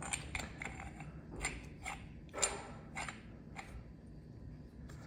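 Black iron pipe fittings clinking and knocking as they are handled and threaded together: a string of separate light metal clicks that thins out near the end.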